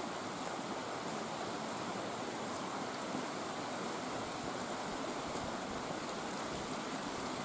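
Mountain stream rushing steadily over a rocky bed.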